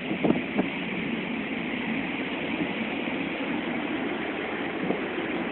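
Steady rush of wind and churning sea on a bulk carrier's deck in heavy weather, with wind buffeting the phone's microphone. There are two brief louder spikes in the first second.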